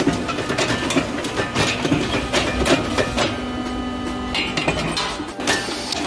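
CNC angle-steel punching, marking and shearing machine running: a dense, irregular clatter of metallic clicks and knocks from its tooling, over a steady machine hum that fades about four seconds in.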